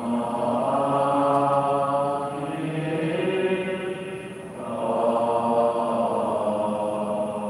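Buddhist chanting, sung in long drawn-out held notes; one phrase fades out about four and a half seconds in and the next begins.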